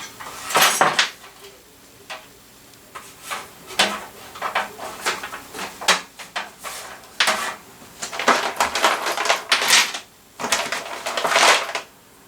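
Computer cables and their plastic connectors being handled and pushed through a PC case: rustling and scraping with scattered clicks and knocks, the longest rustles about a second in, from about eight to ten seconds, and near the end.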